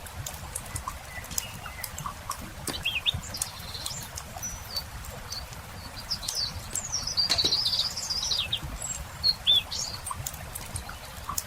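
Wood fire crackling with scattered short pops, while small birds chirp and sing; the longest and loudest bird phrase, a warbling run, comes a little past the middle.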